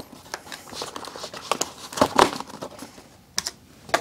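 Hands twisting small plastic retaining fasteners off a toy and working it loose in its cardboard packaging tray: irregular clicks, scrapes and crinkles of plastic and cardboard, with a louder cluster about two seconds in.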